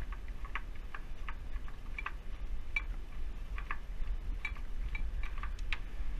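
Light, irregular metallic clicks and ticks, a few a second, as small parts of a Primus OmniLite Ti stove are unscrewed and handled.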